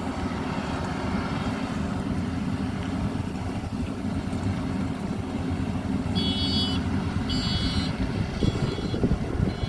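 Maxxi Bimo 102 combine harvester running steadily with a low engine rumble while harvesting rice. About six seconds in come two short high-pitched tones, each about half a second long.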